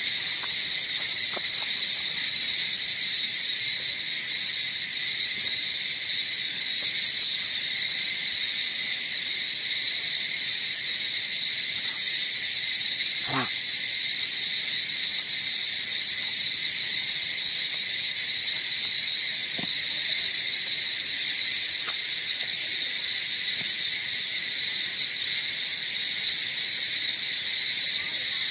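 Steady, high-pitched insect chorus droning without a break, with a few faint clicks now and then.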